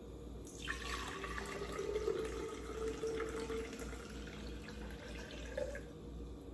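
Water pouring in a steady stream from a plastic measuring jug into a tall glass vase. A faint ringing note rises slightly as the vase fills. The pour starts about half a second in and tapers off near the end.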